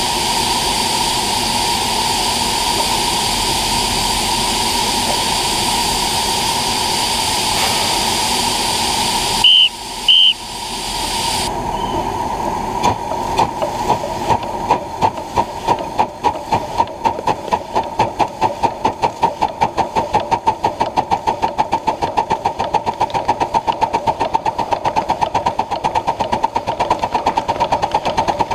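Ridable live-steam Pacific (4-6-2) locomotive standing with steam hissing, then two short blasts on its steam whistle, the usual signal for moving off. The hiss then drops and the exhaust starts chuffing as it pulls away, the beats quickening from a couple a second to several a second.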